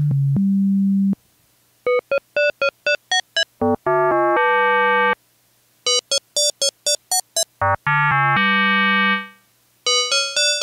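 Roland System 8 synthesizer playing its two-operator FM oscillator at a 1:3.5 frequency ratio: a held low note, then runs of quick staccato notes and more held low notes, with the short notes growing brighter partway through. Near the end the notes ring on with a little release on the envelope and sound like a bell.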